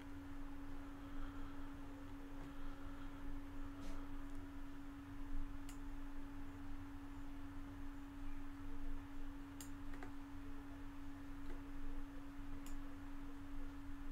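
A steady low tone with a low hum underneath, with a few faint clicks scattered through, about four, from a computer mouse.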